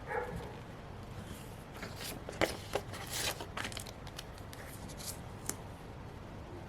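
Hands handling paper and stickers for a planner page: soft rustling with short scratchy clicks and scrapes, busiest from about two to four seconds in.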